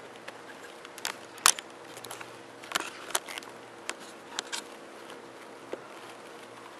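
Handling noise: a scatter of sharp clicks and crackles, the loudest about one and a half seconds in, over a faint steady hum.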